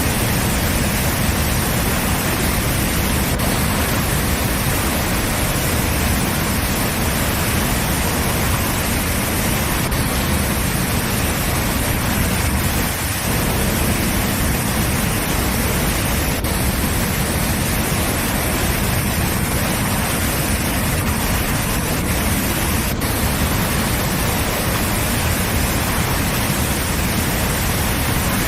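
Waterfall: falling water making a steady, unbroken noise that never changes in level.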